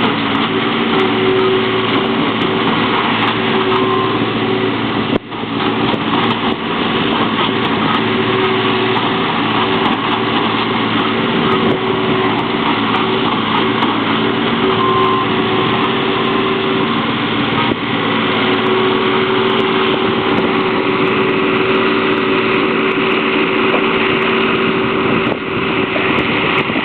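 New Holland skid-steer loader's engine running steadily at a constant speed, with a brief dip about five seconds in.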